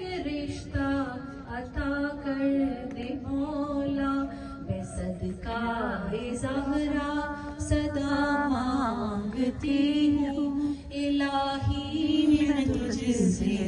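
Women's voices chanting a naat in devotional recitation, unaccompanied, the melody bending and rising over a long held low note.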